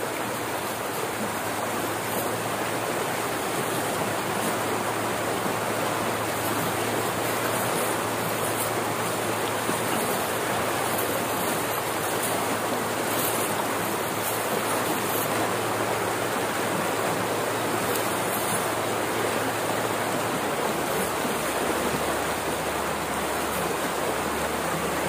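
Steady rushing of muddy floodwater gushing from a concrete culvert pipe into a stream, the flow swollen by the first flood after the dry season.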